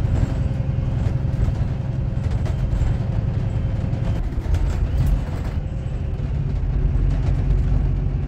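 Cabin noise of a VDL Berkhof Ambassador diesel city bus with a Voith automatic gearbox under way: a steady low drone from the engine and drivetrain. A steady whine rides on top and drops out about four seconds in. A short spell of light rattling follows around five seconds in.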